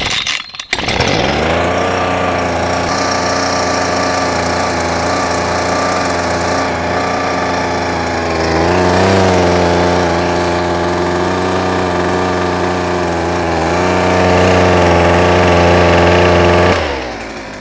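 Husqvarna 125B leaf blower's small two-stroke engine catching about a second in and running steadily. Its pitch wavers briefly partway through and rises a little near the end before it cuts off suddenly.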